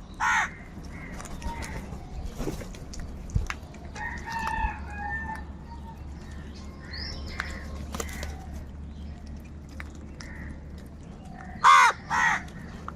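Crows cawing: one loud harsh caw at the start and two in quick succession near the end, with fainter calls and other bird sounds in between.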